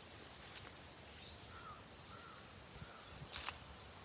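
Faint outdoor ambience with a few short, distant bird calls a little past the middle, over a steady high-pitched hiss.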